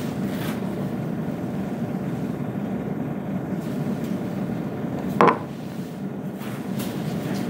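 Steady low rumble of classroom room noise, broken about five seconds in by one brief, sharp sound, after which the rumble is a little quieter.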